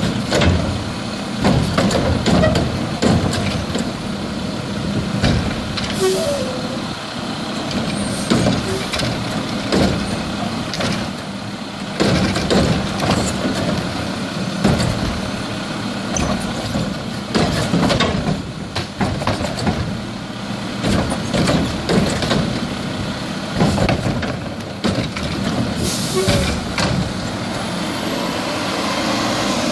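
Mack LEU garbage truck's diesel engine running while the Curotto-Can's hydraulic arm dumps a trash cart and lowers it back to the curb, with repeated clattering and banging of the cart and falling trash. Short sharp air hisses come about six seconds in and again near the end.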